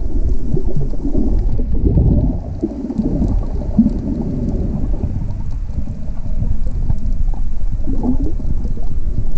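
Muffled underwater water noise picked up by a camera held beneath the surface: a continuous low rumble, with almost nothing in the higher pitches.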